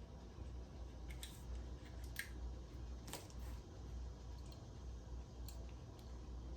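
A few faint, sharp clicks and taps of small pistol parts being handled during frame assembly, over a low steady hum.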